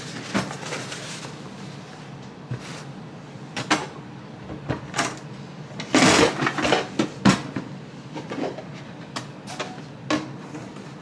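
Hard cases and a bag being lifted out of an aluminium storage box and set on a table: scattered knocks and clicks, with a louder scraping rustle about six seconds in.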